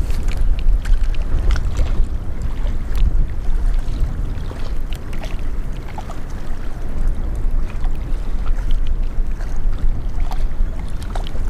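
Strong wind buffeting the microphone: a heavy, gusting low rumble throughout, with scattered light clicks.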